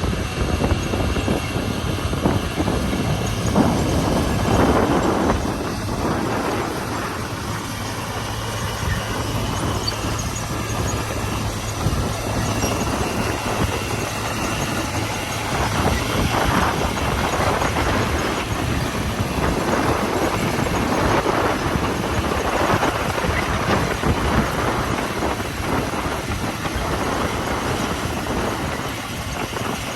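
Komatsu D41P crawler bulldozer working: its diesel engine runs steadily with a low hum, and the noise swells and eases every few seconds.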